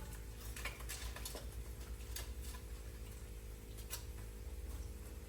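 Asparagus spears being rolled around in a baking pan with olive oil and garlic: a few scattered light clicks and taps against the pan over a faint steady hum.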